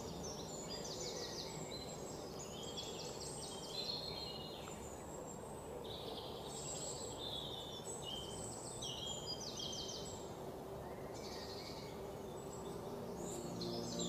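Several small songbirds singing: many quick high chirps and short rapid trills, overlapping, over a steady low hiss of background noise.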